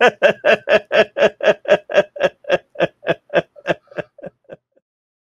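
A man's long laugh: a steady run of quick 'ha' pulses, about six a second, fading out about four and a half seconds in.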